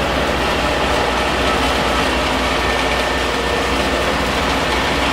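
Steady, loud running of processing machinery in a cassava starch plant, an even mechanical rush with a low hum and no let-up.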